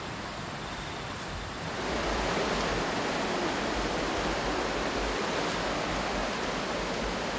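Steady rush of flowing water, growing louder about two seconds in.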